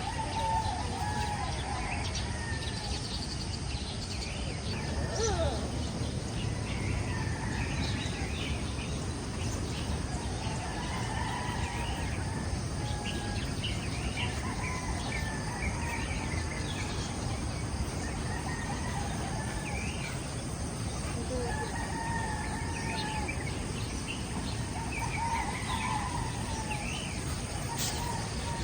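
Roosters crowing again and again, a call every few seconds, over a steady low rushing noise.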